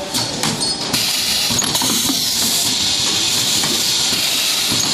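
Steady loud hiss from a cable soldering assembly machine, with a few short clicks about half a second in.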